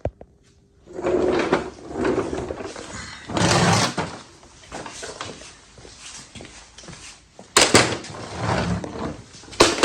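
Short bursts of rustling and handling noise with a couple of sharp knocks, the last one near the end.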